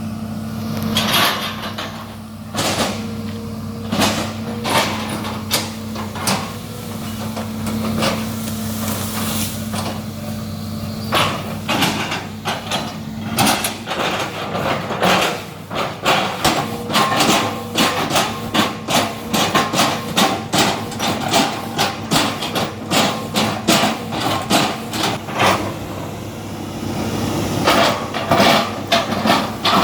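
Excavator engine running steadily under repeated sharp knocks as the bucket chops up oil palm trunks. The knocks come thick and fast, about two a second, through the second half.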